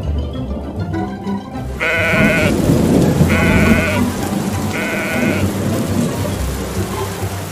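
A sheep bleats three times, each call wavering and about half a second long, over the steady hiss of heavy rain, with music playing underneath.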